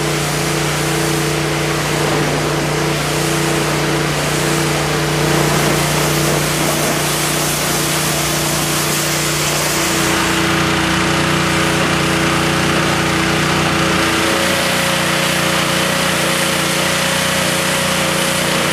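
Pressure washer running, a steady motor hum under the hiss of its spray as it washes down a masonry wall.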